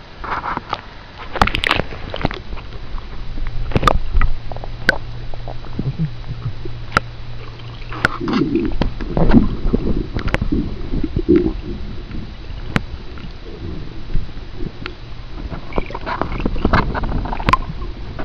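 Water churned by an Old English Sheepdog paddling, heard with the microphone under the water of a swimming pool. There is muffled gurgling and sloshing, many sharp clicks and knocks, and a low hum through the first half.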